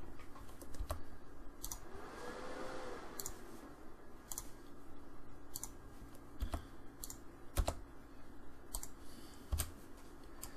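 Computer mouse and keyboard clicks: a dozen or so sharp, irregularly spaced clicks as commands are picked and objects selected in a CAD program.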